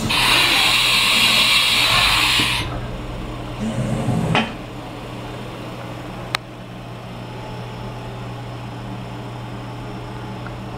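Haas VF-2 CNC vertical machining center running: a loud, high, hiss-like noise for about two and a half seconds that cuts off abruptly, a shorter burst a second later, a single sharp click about six seconds in, and a steady low hum throughout.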